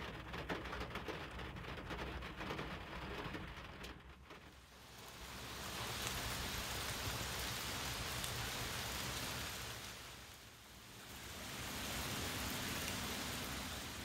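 Rain: close pattering of drops for the first four seconds or so, then two long swells of heavier rushing noise, with a low rumble underneath.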